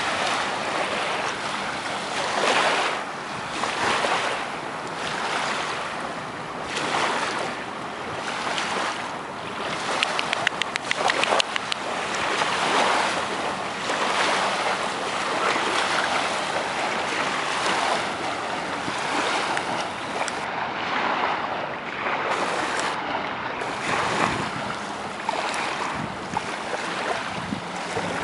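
Wind buffeting the microphone over small waves washing on a sandy lakeshore, a steady hiss that swells and fades every second or two. A short run of sharp clicks comes about ten seconds in.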